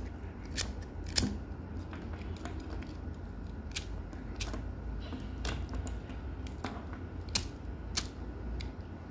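Small metal clicks and taps, about a dozen at irregular intervals, as the parts of a Zippo Surefire multi-tool are handled and fitted together, over a steady low hum.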